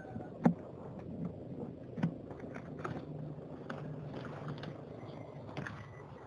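Scattered clicks, knocks and scrapes of something being handled, the sharpest about half a second in and another about two seconds in.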